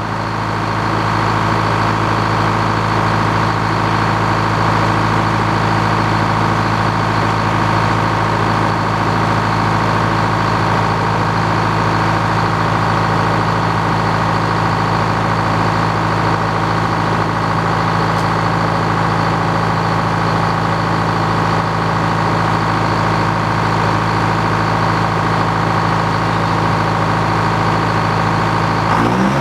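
Old Frick circular sawmill and the engine that drives it, running steadily. The sound swells over the first couple of seconds, then holds even, and the engine speed rises briefly right at the end.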